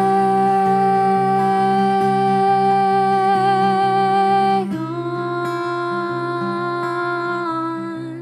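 Fender acoustic guitar fingerpicked in a steady pulse under a woman's and a man's voices holding long wordless notes in harmony; the held chord changes about halfway through.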